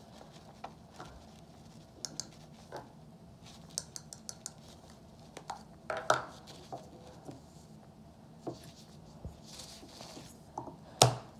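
Scattered light clicks, taps and rustles of small plastic toy pieces and a little cardboard box being handled on a wooden table, with one sharper click near the end.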